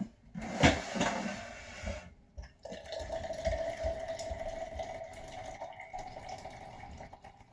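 Water running into a coffee mug, with a steady hum from about two and a half seconds in, after a short clatter and knock at the start.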